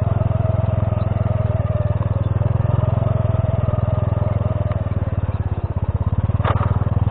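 Honda C70 step-through's small single-cylinder four-stroke engine running steadily at low speed while it is ridden over a loose gravel track. A sharp click comes near the end.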